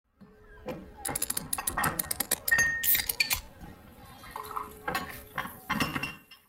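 Clinking and clattering sound effects for an animated logo intro, like cutlery and dishes knocking together. The sharp clicks come in two clusters with a quieter gap between them.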